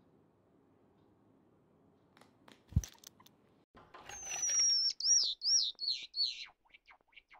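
A Java sparrow gives one long, high call that slides down in pitch and wavers, then a run of short chirps. Before the call come a few faint clicks and one low thump.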